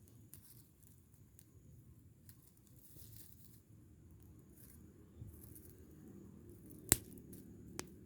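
Rubbish fire burning with faint scattered crackles, then two sharp snaps near the end, the first the louder.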